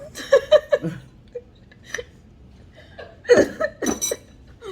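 A person laughing in short bursts: a chuckle in the first second and a louder burst of laughter about three seconds in.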